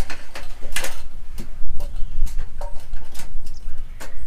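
Scattered knocks and clicks of a framed solar panel and an aluminium ladder being handled as the panel is lifted up the ladder, over a steady low rumble.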